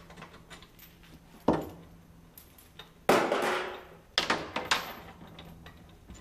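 Muck spreader flail chains clanking against steel as they are handled: four metallic clanks, the loudest about three seconds in, each ringing briefly.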